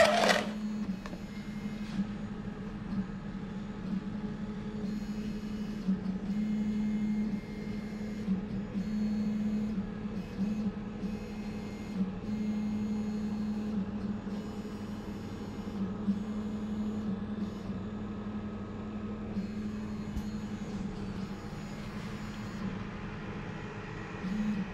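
A 3D printer running, its stepper motors humming and whining in tones that swell and drop every second or two. A sharp knock right at the start as a box is handled.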